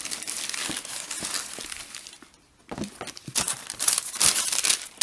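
Tissue paper in a sneaker box crinkling and rustling as a shoe is unwrapped and lifted out. It pauses briefly about two seconds in, then comes back in louder bursts.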